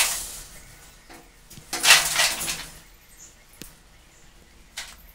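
Electrical wires being handled and pulled at a ceiling junction box: rustling and scraping, loudest about two seconds in, with a few small clicks.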